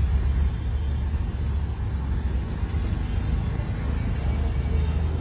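Steady low rumble of background noise with no speech.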